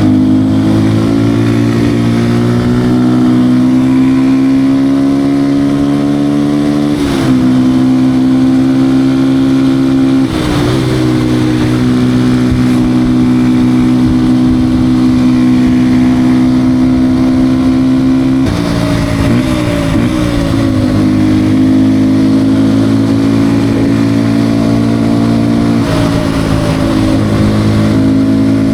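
A Beta RR 125 R motard's 125 cc single-cylinder engine is ridden under load at steady high revs. The note dips briefly at several gear changes, about 7 and 10 seconds in and again twice in the second half, each time settling back to a steady pitch.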